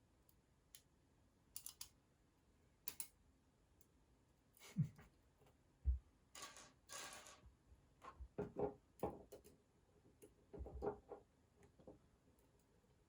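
Small metal construction-set parts being handled and fitted: faint scattered clicks, a few louder knocks and a thump about five to six seconds in, a brief rustle, then a run of clicks and knocks.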